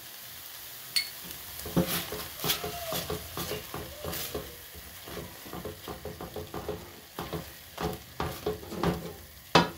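A silicone spatula stirring and scraping thick tomato sauce around a nonstick frying pan, in many irregular strokes over a faint sizzle from the cooking sauce, with one sharp knock near the end.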